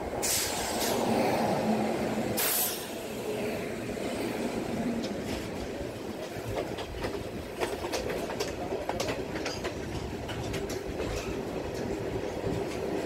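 A freight train passing close by on the next track. For the first three seconds, twin WAG-9HC electric locomotives rush past, loudest, with a sharp burst about two and a half seconds in. Then open steel wagons rumble by with a steady clatter and irregular clicks of wheels over rail joints.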